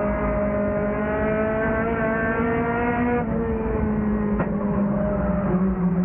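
Lightning 4 race car's engine heard from inside the car, the pitch climbing slowly under throttle for about three seconds, then dropping sharply as the driver lifts, then running steady. A single short click sounds about four seconds in.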